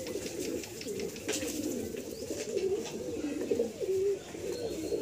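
Madrasi pigeons cooing, a continuous run of low, wavering coos.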